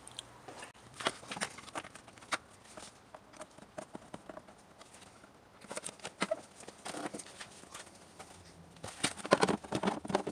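Scattered light clicks and knocks of a plastic engine cover being handled and set down over the intake manifold of a 2004 Acura MDX's V6, with a quick run of clicks near the end as the cover is pressed into place.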